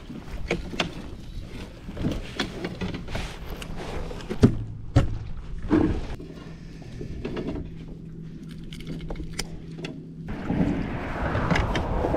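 Scattered knocks, thunks and clatter of a landing net and gear being handled on a plastic fishing kayak, the loudest thunks about four and a half to six seconds in, with a faint steady hum behind them for a few seconds after. From about ten seconds in a rushing hiss of water or wind comes up.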